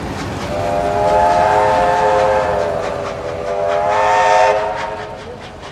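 Steam locomotive's whistle sounding a long multi-note chime, dipping briefly about three seconds in before a second blast, over the rhythmic clicking of the train's wheels.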